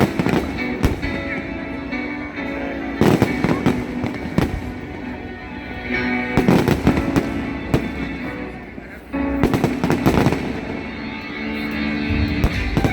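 Fireworks going off in rapid clusters of bangs every couple of seconds, over music with held notes.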